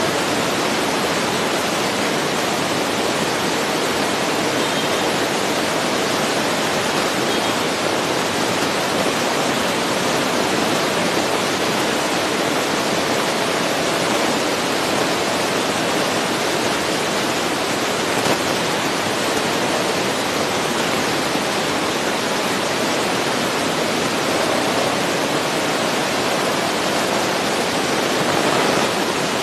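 A steady, even hiss with no distinct sounds standing out from it.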